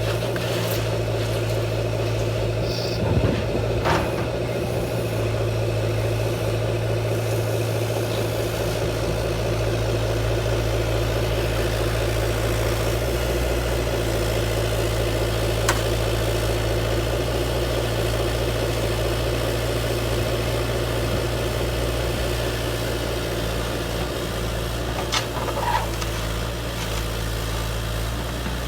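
A motor or engine running steadily at an even pitch, with a few short clicks and knocks over it: a handful in the first few seconds, one mid-way and a couple near the end.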